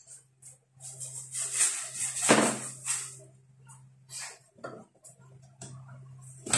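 Irregular rattling and rustling of small objects being handled, loudest about two seconds in, over a steady low hum.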